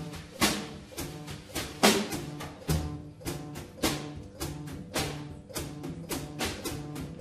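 Double bass and drum kit playing a jazz duet: sharp drum strokes about three a second over short, low bass notes.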